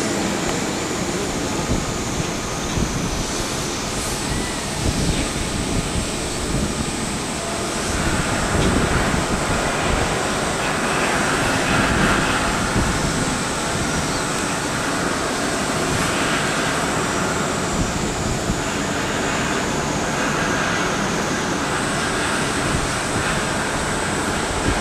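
Wind buffeting the microphone, an uneven low rumble over a steady wash of distant outdoor noise, with a thin high whine held throughout.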